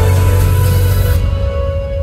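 Loud, dark-sounding music over a concert PA. About a second in, the bright upper part cuts off suddenly, leaving a single held tone that slowly fades.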